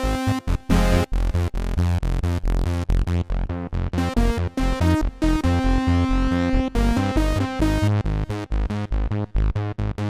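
Dave Smith Instruments Prophet Rev2-16 polyphonic analog synthesizer played with both hands: a busy run of short, sharply cut notes and chords over a deep bass line.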